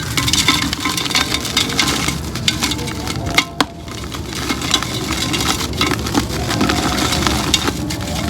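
Pink concrete pot being crumbled and broken apart: a dense, continuous crunching and crackling of brittle concrete, with one sharper crack about three and a half seconds in.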